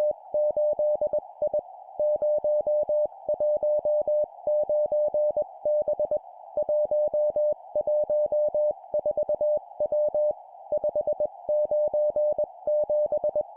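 Morse code (CW) sent at 20 words per minute: one steady tone keyed on and off in dots and dashes, forming groups of four characters (three numbers and a letter) with short pauses between groups, over a steady background hiss.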